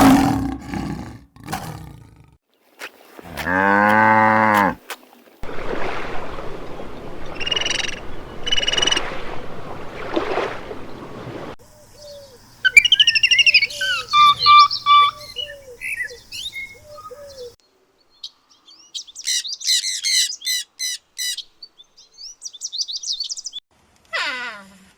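A sequence of different animal calls: one loud drawn-out pitched call, then a noisy stretch with two short high whistles, then bursts of rapid bird chirps and high trills, ending with a short falling cry.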